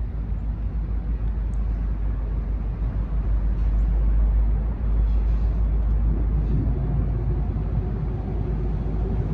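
Diesel locomotive of a local freight train approaching slowly, its low engine rumble growing louder, with a steady engine drone coming in about two-thirds of the way through.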